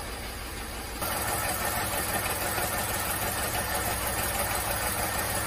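VW 1.2-litre 6V three-cylinder petrol engine idling at about 740 rpm and running rough, misfiring on cylinder 2. The misfire comes from low compression in that cylinder, which the owner traced to a burnt exhaust valve. The sound steps up about a second in, when it is heard close up in the engine bay.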